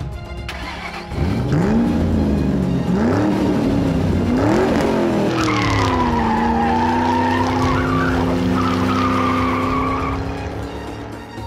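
Dubbed race-car sound effect: a sports-car engine revs up through several quick gear changes, then a long tyre squeal wavers over the engine running steadily beneath it.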